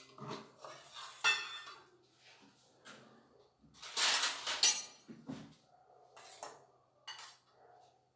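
Steel kitchen utensils clinking and clattering on a counter as a small steel bowl with a lid is set down and handled. There are a few light clinks early on, the loudest clatter comes about four seconds in, and a couple of softer clinks follow.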